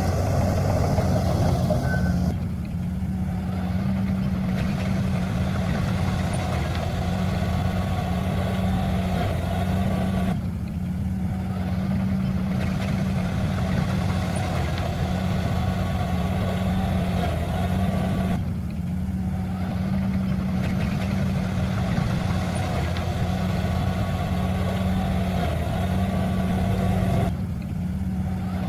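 Heavy diesel engine of earthmoving machinery running steadily, with a rougher mechanical noise over it that drops away for about two seconds roughly every eight seconds.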